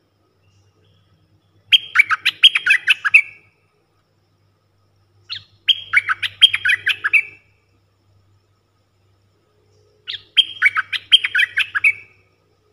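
Stripe-throated bulbul singing three short phrases of rapid notes, each under two seconds and a few seconds apart: a caged decoy bird calling to lure wild bulbuls.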